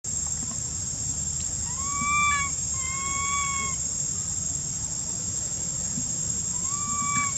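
Baby macaque crying for its lost mother: drawn-out, slightly arched coo calls, two in a row about two seconds in and a shorter one near the end. A steady high insect drone runs underneath.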